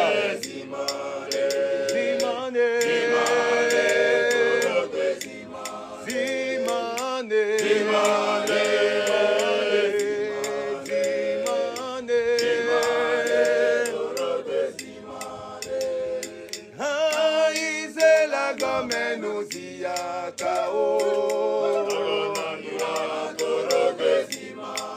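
A cappella choir singing a repeated chant-like phrase in several voice parts together, in harmony, on long held notes.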